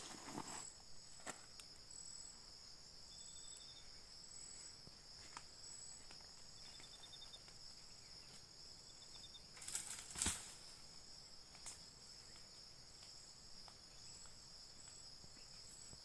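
Insects calling: a steady high-pitched buzz with a pulsing higher chirp over it and a few short rapid trills. About ten seconds in there is a brief louder rustle or crunch.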